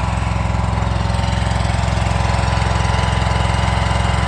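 Mini skid steer's engine running at a steady speed, with a rapid even pulse and a steady whine above it.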